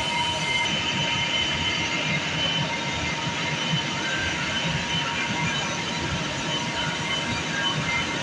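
Steady machinery noise of a chiller plant room: a large centrifugal water chiller and chilled-water circulating pumps running, a constant rumble with a steady high whine in it.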